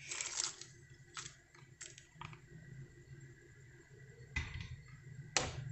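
Small salted shrimp tipped from a plastic colander into a pot of hot water for scalding: a brief soft splash and patter, then a few light clicks and knocks of the colander against the pot, over a faint low hum.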